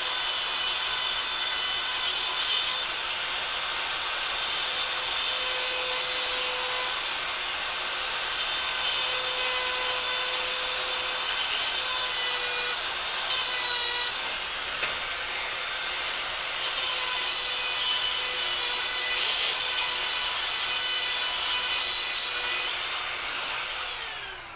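Dremel rotary tool with a small grinding wheel grinding the sharp inside edge of cut steel flex conduit smooth, a steady high whine with gritty grinding noise. Near the end the tool is switched off and its whine falls as it spins down.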